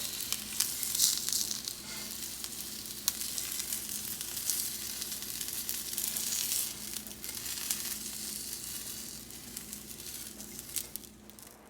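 Tuna steaks searing in a hot preheated pan: steady sizzling with scattered crackles and pops, easing off near the end, over a faint low hum.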